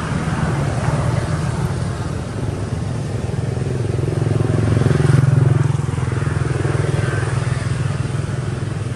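An engine running steadily as a low hum, growing louder a little past the middle and then easing off.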